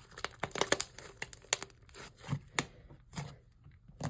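Butter-textured slime being kneaded and stretched by hand, crackling in a quick run of sharp clicks for the first second and a half, then single wet pops about every half second.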